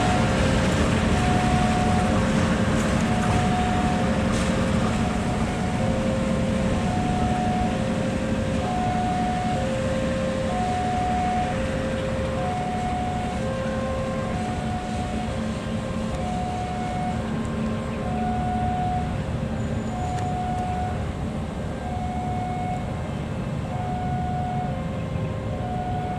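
Level-crossing warning alarm sounding a steady two-tone ding-dong, a higher and a lower note alternating about once a second. Under it runs the low rumble of a diesel locomotive hauling a train slowly forward.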